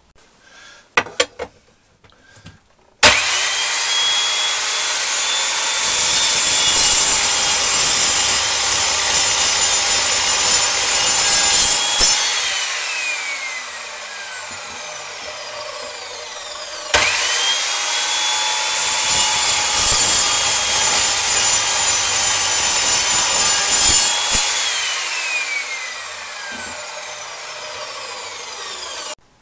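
Evolution chop saw cutting aluminium bar: after a few light knocks, the motor starts suddenly and the blade cuts loudly through the bar for about six seconds, then winds down with a falling whine. The same start, cut and run-down comes twice.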